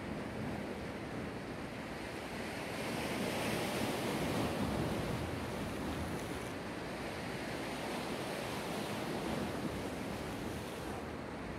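Black Sea waves breaking and washing on the shore, a steady surf wash that swells about three seconds in and eases off again, with some wind on the microphone.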